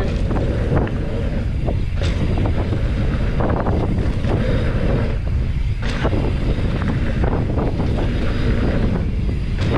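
Wind buffeting the microphone while a Trek Roscoe 9 mountain bike is ridden along a dirt trail: a steady, loud low rumble with scattered clicks and knocks.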